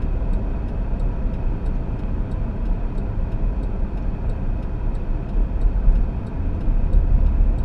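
Road and engine noise inside a moving car's cabin, a steady low rumble, with a faint regular ticking about three times a second.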